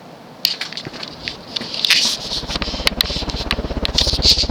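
Rustling and clicking, then from about halfway a rapid, even low pulsing as the downdraft of a Hunter low profile ceiling fan running on high buffets the microphone, beating with each blade pass.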